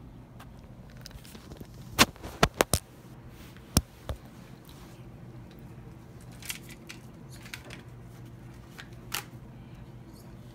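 Sharp clicks and taps from objects being handled. Four come in quick succession about two seconds in, two more follow near four seconds, then a few fainter ones, over a low steady hum.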